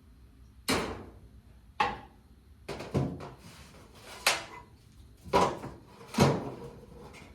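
About half a dozen sharp knocks and clunks, roughly one a second, of hard objects being handled and set down on a workbench.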